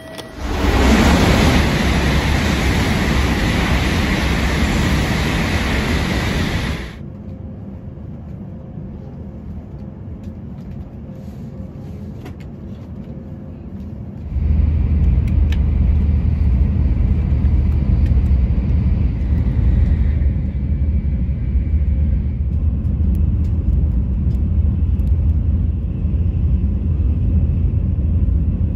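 Shinkansen train noise: a loud rushing roar of a train at the station for the first several seconds, then a quieter lull. From about halfway, the steady low rumble of the bullet train running, heard from inside the carriage.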